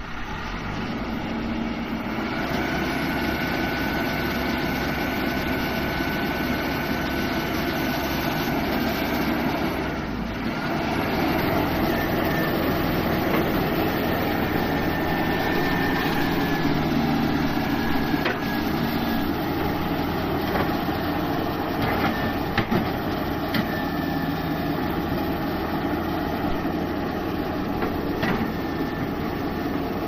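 SNSC backhoe loader's diesel engine running under load while the hydraulic backhoe arm is worked, with a thin whine at times; it dips briefly about ten seconds in and then runs a little louder. A few sharp knocks come in the second half.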